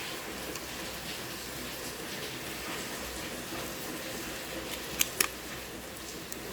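Two sharp little clicks in quick succession about five seconds in, over a steady faint hiss: the iPhone 6 Plus display's flex-cable connectors being pressed home onto the logic board sockets.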